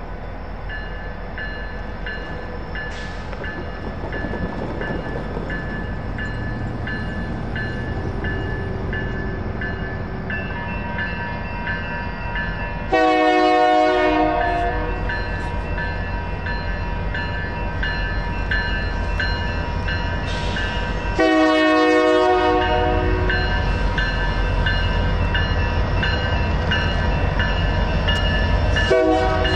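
Grade-crossing bells ringing in a steady, even rhythm while an approaching Union Pacific locomotive sounds its horn: a long blast about 13 seconds in, a second long blast about 21 seconds in, and a short blast near the end, the start of the crossing signal. A low rumble from the train grows louder in the second half.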